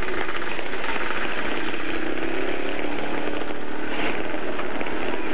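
Off-road vehicle engine running loud and steady, its pitch easing slightly down about halfway through.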